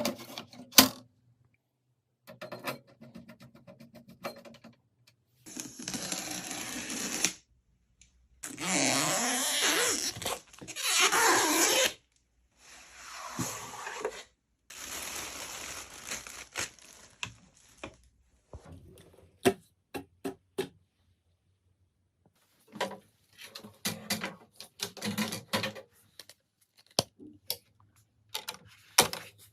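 Handling noises during a PC build: several stretches of rustling packaging, the loudest about nine to twelve seconds in, mixed with scattered clicks and taps of parts being handled.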